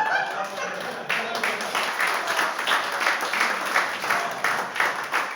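A small audience clapping, the separate claps still audible, after a brief voice at the very start.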